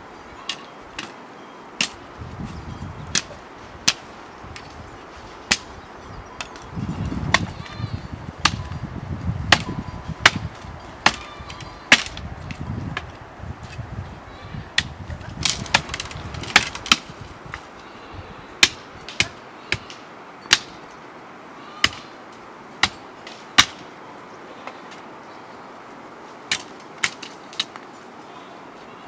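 Sharp chops of a hand sickle hacking at dry woody branches and shrub stems, one blow about every second with a short pause near the end. Low scuffing and rustling sounds come between the blows in the first half.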